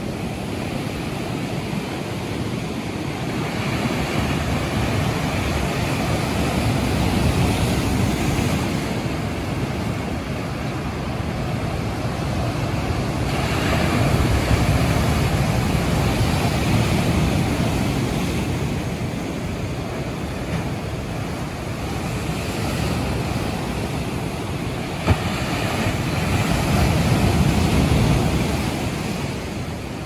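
Sea surf breaking and washing over shoreline rocks, in long swells that rise and fall as each set of waves comes in. One brief sharp click late on.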